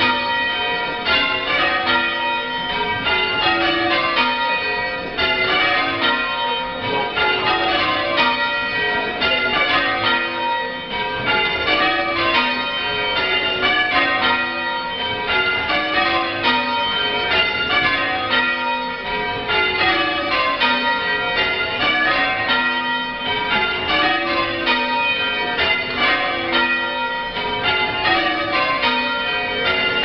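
A ring of church bells being rung full-circle by hand from the ringing chamber below, struck one after another in a steady, even sequence, with the tones of the bells overlapping continuously.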